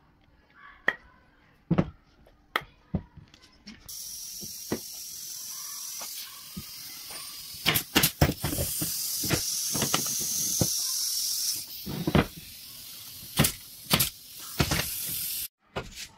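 Steady hissing spray that starts about four seconds in and cuts off abruptly near the end, with scattered sharp knocks and clicks throughout.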